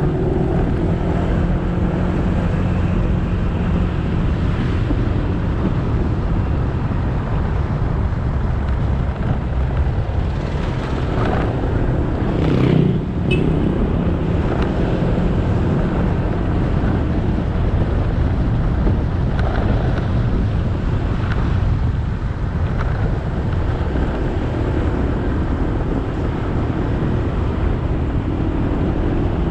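Motorbike engine running at road speed, with wind buffeting the camera microphone and tyre and road noise. About halfway through there is a brief louder swell.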